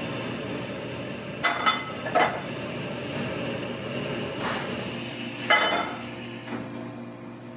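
Metal pan and spatula clanking on a commercial range: about five sharp clinks and knocks, the loudest a little past halfway, over a steady ventilation hum.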